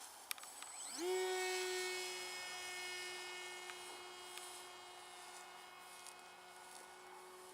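The twin electric motors and propellers of an E-flite Opterra 2 m flying wing spin up sharply about a second in, as its launch mode throttles up after the hand throw. They then hold a steady high whine that slowly fades as the plane climbs away.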